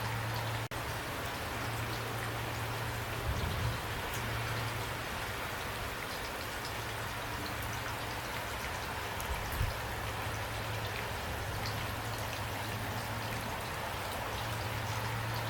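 Steady rain falling, an even hiss of drops with a steady low hum underneath and a couple of brief soft low thumps.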